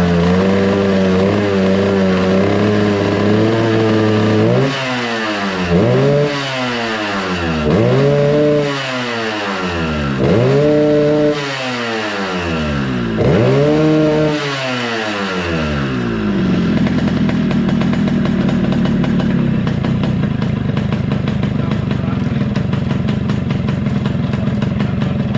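Yamaha RX-King's single-cylinder two-stroke engine, freshly tuned, held at raised revs. About five seconds in it is blipped five times, each rev rising sharply and falling back, and then it settles to a steady idle.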